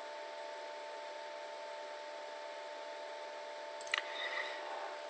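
Steady faint hiss and electrical hum of a desktop recording setup, with a short computer mouse click about four seconds in as the screen switches to another program.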